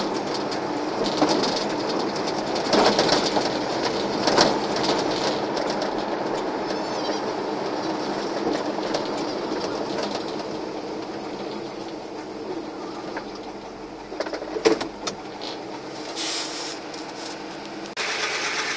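Cab noise of a 1988 GMC R3500 one-ton pickup on the move, its carbureted small-block V8 running under road noise. The sound eases off as the truck slows, with a few knocks about fourteen seconds in.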